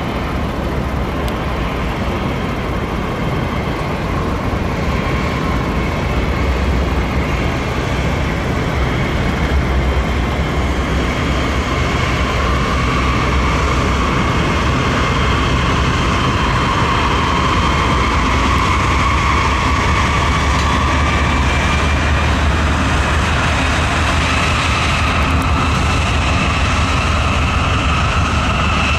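Diesel-electric freight locomotives running slowly past at close range. A deep, steady engine rumble lies under higher whining tones that slowly rise and fall.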